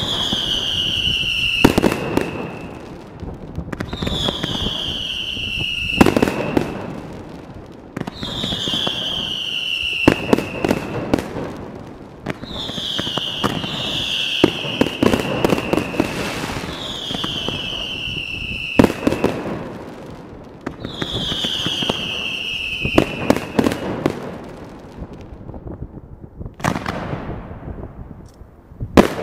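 Fireworks display: a run of whistles, each falling in pitch and lasting about a second, repeating roughly every two seconds among sharp bangs and crackling. It quietens near the end before a final loud bang.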